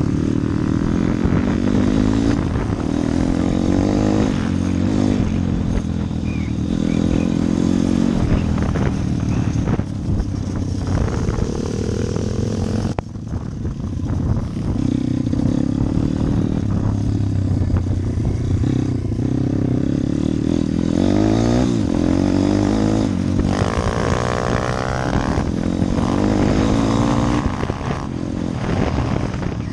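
Pit bike engine heard from on board, revving up and easing off again and again as it rides a dirt track, with a brief lull near the middle and a run of rising revs later on.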